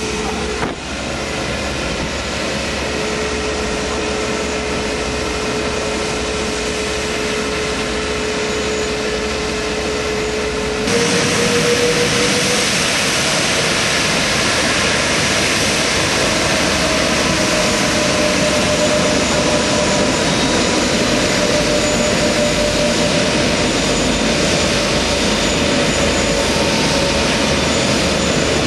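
Airbus A380's four jet engines running at taxi power as the airliner taxies past: a steady rushing noise with a held whine. About eleven seconds in it gets suddenly louder and the whine steps up in pitch.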